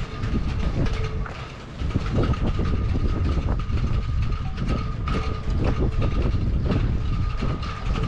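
Strong gusty wind rumbling on the microphone, with a thin steady whistle and scattered clicks and knocks.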